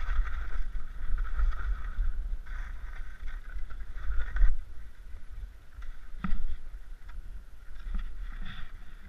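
Skis sliding and scraping through snow in uneven surges of swishing, over a low rumble of wind buffeting the microphone, with one sharp knock about six seconds in.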